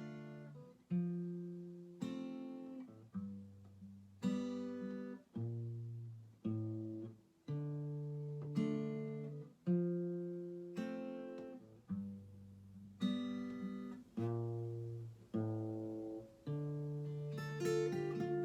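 Acoustic guitar playing an instrumental passage of chords, each struck and left to ring out, about one a second, with quicker strumming near the end.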